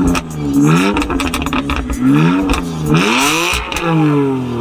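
BMW M4 engine being blipped: the revs rise sharply and fall back several times in quick succession. A short hissing burst comes about three seconds in, followed by a longer fall in revs near the end.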